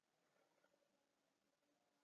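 Near silence: a pause between narrated lines.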